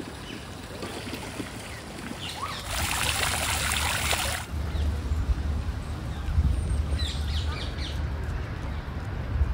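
A fountain jet splashing into a pond, a dense hiss for about two seconds in the middle. Birds chirp now and then, and a low wind rumble on the microphone runs through the second half.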